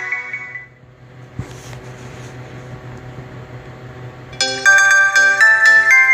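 TCL A1 phone ringtones: one tune fades out in the first second, then a low hum and hiss with a single click about a second and a half in. About four seconds in, the next ringtone starts, a bright melody of ringing pitched notes.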